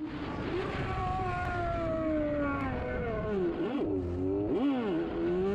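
Motorcycle engine heard from the rider's helmet camera, its note slowly falling as the bike eases off, then two quick throttle blips about four seconds in before it climbs steadily again. Wind rushes over the microphone throughout.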